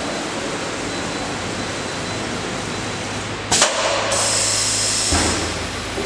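A CNC router with an automatic unloading table running with a steady machine noise. About three and a half seconds in there is a sharp clack, then a hiss lasting about a second, ending with a low thump, as the unloading system moves the board.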